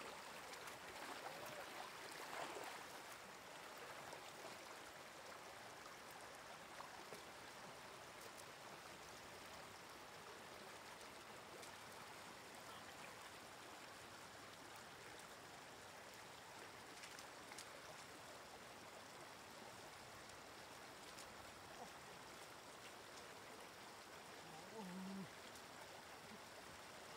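Shallow floodwater running steadily over a road, a faint even rushing, with some louder splashing in the first few seconds as someone wades through it.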